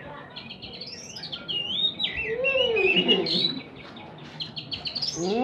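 Oriental magpie-robin (kacer) singing a varied, fast run of chirps and whistled, sliding notes from about half a second in, then falling quiet for a moment before a few short notes near the end.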